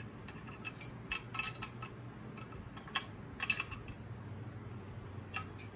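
Irregular metallic clinks and taps of steel sockets and tools being handled and fitted onto the flywheel nut of an air-cooled VW Beetle engine, a few with a short ring, over a steady low hum.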